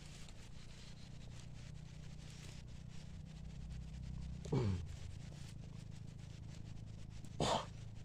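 Faint rustling and ticking as thin bamboo sticks are handled and pushed into dry leaf litter, over a steady low hum. About halfway through, a short animal call slides down in pitch, and near the end there is a brief, sharper call.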